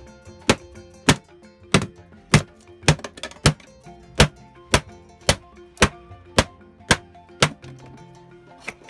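Hammer blows knocking against a stubborn plywood partition, roughly two sharp knocks a second with a short pause near the end, driving the panel loose, over background music.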